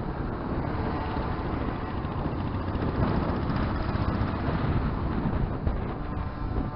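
Riding a motorcycle in traffic, heard from the rider's camera: steady wind rush with engine and road noise, a little louder around the middle. A steady pitched tone joins near the end.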